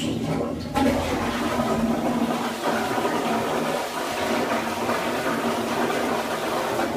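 Exeloo automatic public toilet flushing: a loud, steady rush of water with a low motor hum underneath. It starts suddenly and keeps an even level throughout.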